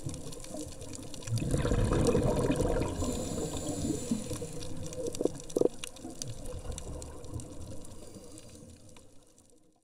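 Underwater sound on a scuba diver's camera: a steady watery wash with faint scattered clicks, and a loud surge of regulator exhaust bubbles about a second in that lasts a couple of seconds. It all fades out near the end.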